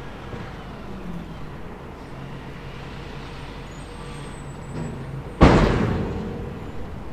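Komatsu PC360LC excavator's diesel engine running steadily, then about five seconds in a sudden loud crash that dies away over a second or so, as a bucket load is dumped into the dump truck's steel bed.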